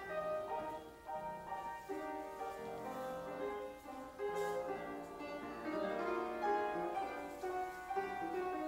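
Piano playing slow classical-style ballet class accompaniment, with melody notes over held chords that change about every half second to second.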